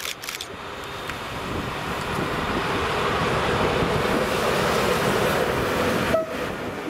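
ST48 diesel locomotive running light past at close range: the engine and wheel-on-rail noise swells and then holds, with a few rail-joint clicks at the start. A brief high-pitched tone sounds about six seconds in.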